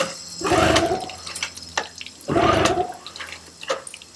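Two-stroke outboard motor being pull-started by hand: two hard yanks of the recoil starter about two seconds apart, the engine cranking over without firing.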